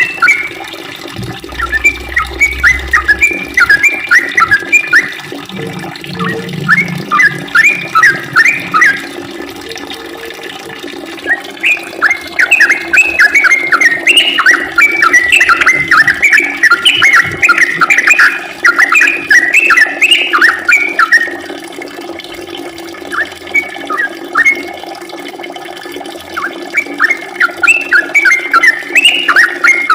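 Yellow-vented bulbul (trucukan) in full song: long runs of rapid, loud chirping notes. It pauses briefly twice between phrases, over a steady low background hum.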